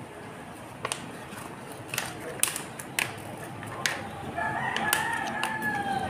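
A rooster crows once, a long call beginning about four and a half seconds in that dips slightly in pitch near its end. Before it come several sharp crackles and snaps of a heat-transfer vinyl sheet being handled and peeled.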